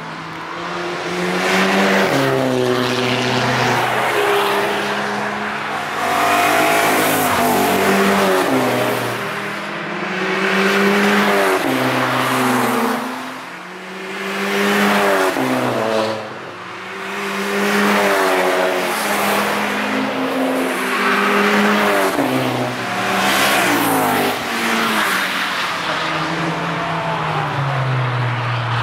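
Volkswagen Golf 5 GTI's turbocharged 2.0-litre four-cylinder engine accelerating hard as the car passes. The revs climb and drop again and again with the gear changes, over several passes cut together.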